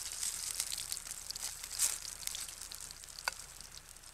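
Lorne sausage sizzling in beef dripping in a frying pan over a wood fire, a steady hiss with scattered crackles. A sharp click about three seconds in.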